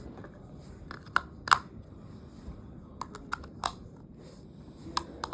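Sharp hard-plastic clicks and taps, eight or so in small clusters, from handling small plastic toy walkie-talkies.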